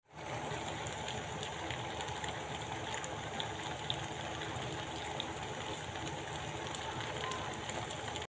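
Chicken and pasta sizzling in a nonstick frying pan: a steady crackling hiss with many small scattered pops.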